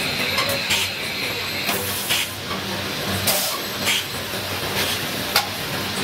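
Small bench lathe running as it turns brass parts, with a steady hiss over a low hum, and irregular sharp clicks and clinks of metal about once a second.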